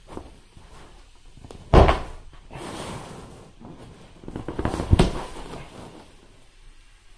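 Inflatable vinyl pool toy being stabbed with a screwdriver. A sharp, loud thump about two seconds in is followed by air hissing out, and a second loud burst of vinyl rubbing with a thump comes around five seconds in.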